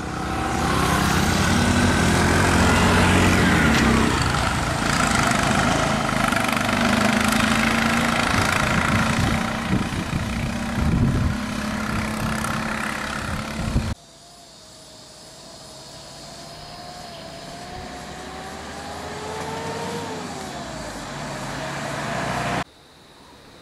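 Small engines of three-wheeler auto-rickshaws running close by, steady and loud. After a sudden cut about 14 seconds in, a quieter engine is heard, its pitch rising slowly and then falling.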